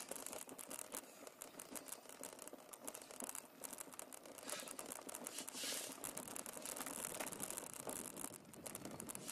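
Faint rustling with many small scattered clicks and ticks.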